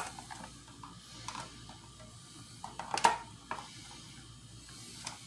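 A few separate light clicks and taps over a faint steady background, the loudest about three seconds in.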